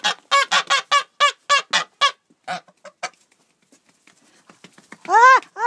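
Grey domestic geese honking. A fast run of short honks fills the first two seconds, a few softer honks follow, then two loud, drawn-out honks come near the end.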